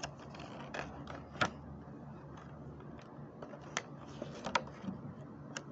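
Clear plastic packaging of a Hot Wheels toy set being handled and pried at to free the tray, with a few sharp plastic clicks among soft rustling.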